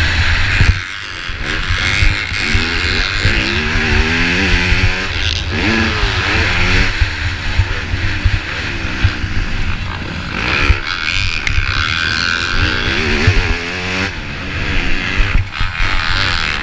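Motocross dirt bike engine revving hard up and down through the gears at race speed, heard close up from a camera on the bike, with wind rumble and knocks from the rough track. The throttle is shut briefly about a second in and again near the end.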